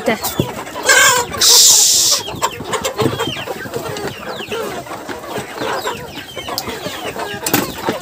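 Chickens clucking and peeping in many short calls as feed is put down, with a short loud rustling hiss about one and a half seconds in.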